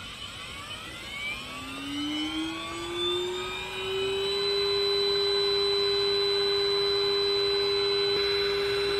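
A motor inside an Agema 470 thermal camera spinning up at power-on. Its whine rises in pitch for about four seconds, then holds as a steady high hum at running speed.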